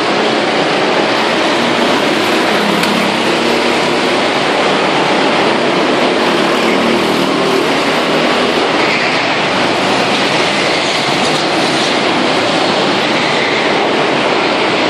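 Go-kart engines running around an indoor track, their noise echoing through the hall as a loud, steady din.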